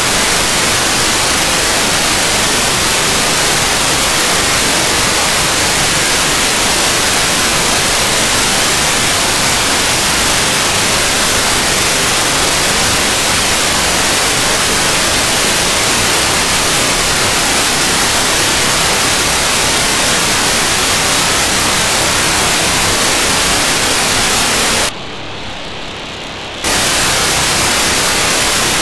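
Steady receiver static from a software-defined radio tuned to the ArcCube-01 cubesat downlink. About 25 s in, a GMSK telemetry packet from the satellite arrives and the hiss quiets for under two seconds, losing its high end, before the static returns.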